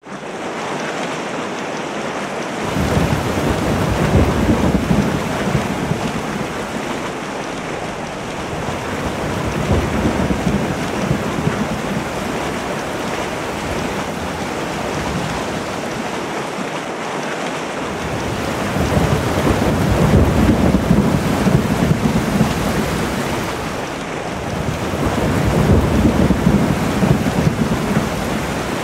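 Thunderstorm: steady rain hissing, with low rolling thunder swelling up and fading away four times.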